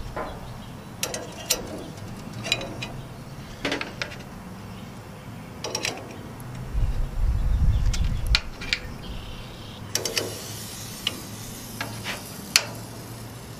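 Flat stainless steel skewers clinking against a metal kebab rack as they are set into it, a series of sharp metallic clicks a second or two apart. A brief low rumble comes about seven seconds in.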